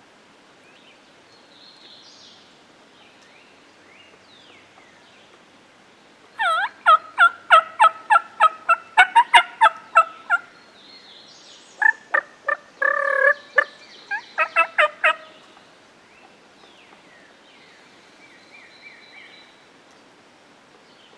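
A hunter's mouth-blown turkey call imitating a turkey: two runs of quick yelping notes, about three or four a second, the first lasting about four seconds and the second, with a longer drawn note in the middle, about three. Faint songbird chirps come before and after.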